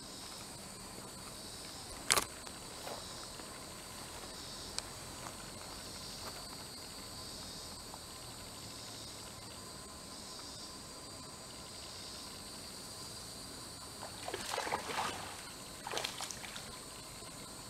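Insects buzzing steadily in two high bands, with one sharp click about two seconds in. Water splashes twice near the end.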